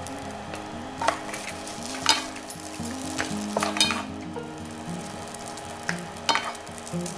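Fried rice with crab innards sizzling in a nonstick frying pan while a wooden spatula stirs and scoops it. Several sharp knocks and scrapes come from the spatula against the pan.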